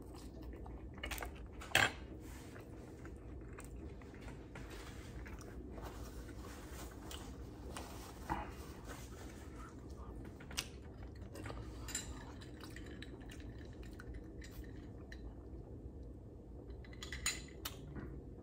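Quiet eating sounds: faint chewing with scattered light clicks of a metal fork against plates and plastic food containers, the sharpest about two seconds in.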